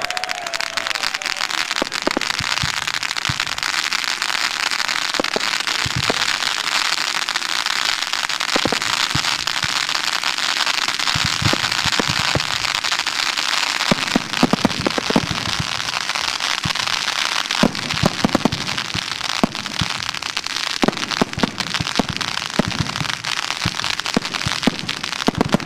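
Firework fountains and a burning lancework sign hissing steadily, with crackling and sharp pops and bangs from aerial shell bursts that come thicker from about halfway.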